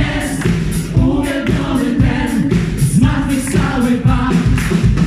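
Large gospel choir singing in full voice over a steady beat.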